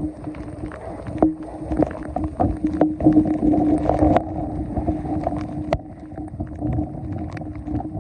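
Water sloshing and splashing with irregular knocks and clatter, over a steady low hum.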